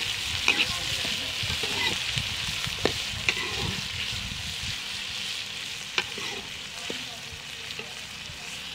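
Sliced onions sizzling in hot ghee in a metal karahi, stirred with a metal ladle that clinks sharply against the pan a few times.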